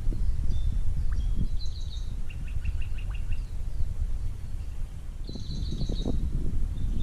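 Small birds chirping: short repeated high notes, with a quick run of six or so chirps about two seconds in and another burst about five seconds in. A steady low rumble of outdoor noise runs underneath.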